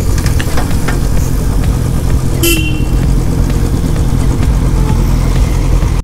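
Motorcycle engine running at low speed, a steady low rumble, with a short horn toot about two and a half seconds in.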